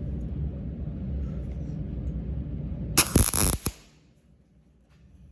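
MIG welding arc struck for a short tack: a loud crackling, sputtering burst of well under a second that cuts off sharply, about three seconds in. A steady low rumble runs under it until the arc stops.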